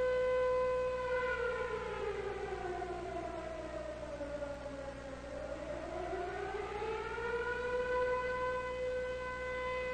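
Warning siren tone held at one pitch, then sliding down in pitch for about four seconds and climbing back up to where it started.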